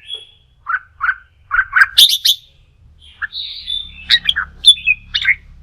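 Red-whiskered bulbul song: a run of short, quick whistled notes, loudest about two seconds in, followed by a longer held note and another quick cluster of notes.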